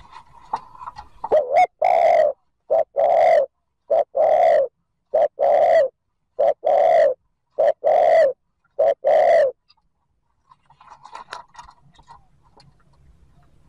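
Spotted dove giving a fast series of coos, each a short note followed by a longer one, repeated about eight times before stopping about nine and a half seconds in. This is the quick 'thúc gù' coo that a decoy dove uses to provoke wild doves.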